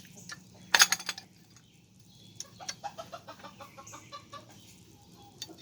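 Chickens clucking in a series of short, quick pulses, with one loud short clatter about a second in.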